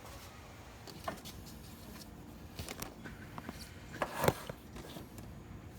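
Scattered light clicks and knocks of handling in a quiet workspace, with one sharper knock about four seconds in.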